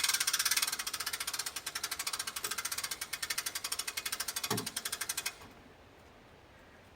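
A small engine idling with a fast, even pulsing beat, with a brief low thud just before it is shut off about five seconds in.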